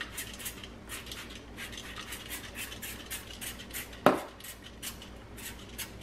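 Trigger spray bottle pumped rapidly, about four short hissing squirts a second, spraying vinegar onto baking soda in a dishwasher. About four seconds in, a single loud knock rings out.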